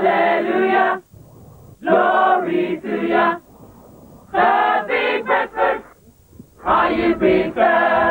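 A group of voices, men, women and children, singing together in four short phrases with brief pauses between them.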